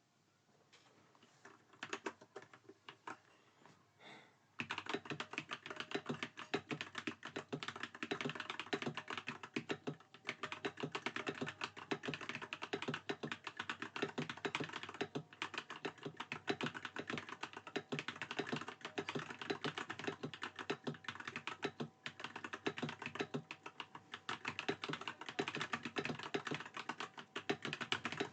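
Gamakay LK67 mechanical keyboard with stock Glorious Panda tactile switches and HyperX keycaps being typed on. A few separate keystrokes come first, then fast, continuous typing starts about four and a half seconds in.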